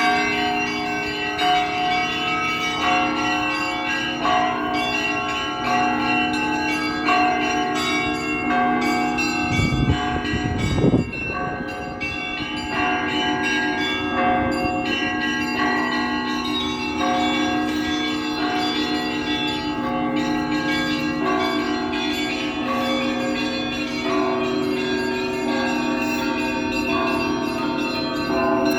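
Russian Orthodox church bells ringing: a peal of several bells struck over and over in a steady rhythm, with lower bells droning under quicker higher ones. About ten seconds in, a low thump rumbles under the bells.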